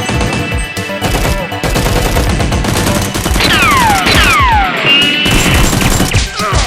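Rapid automatic gunfire sound effects, volley after volley, over background music, with two falling whistle-like tones about three and a half and four seconds in.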